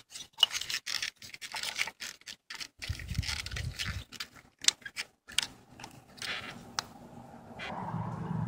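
Plastic ignition coil packs being handled and pressed into their sockets on an engine's valve cover: a run of small clicks, taps and scrapes. A steady low hum comes in near the end.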